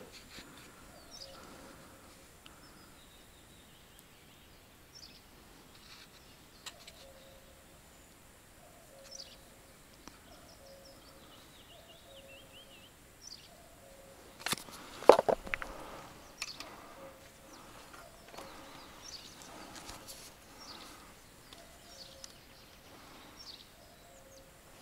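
Quiet outdoor ambience with scattered short bird chirps. One loud sharp knock comes about fifteen seconds in, with a few softer clicks just after it.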